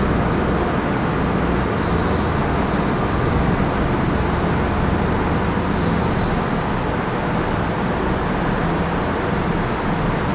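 Steady background rumble and hiss with a faint low hum, unbroken throughout.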